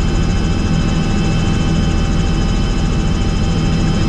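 Helicopter in flight: a steady, loud drone of engine and rotor with several steady high-pitched whines over it.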